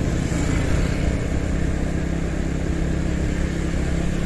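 A vehicle's engine running at a steady speed while riding along a road, with road and wind noise over a constant low engine hum.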